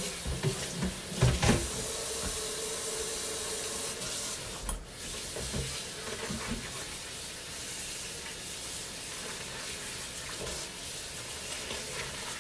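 Kitchen tap running into a stainless-steel sink as something is rinsed under the stream, with a few knocks in the first second or so.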